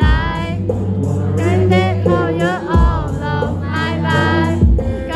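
Male singer singing a slow melody live into a microphone, holding long notes with vibrato, over electric guitar and a steady low accompaniment, with a few low thumps about two seconds apart.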